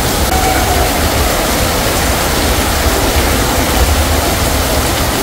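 Heavy rain falling steadily, an even dense hiss, with a low rumble underneath.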